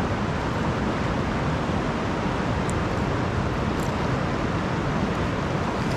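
Steady rush of a fast river running over rocks and gravel, an even, unbroken noise.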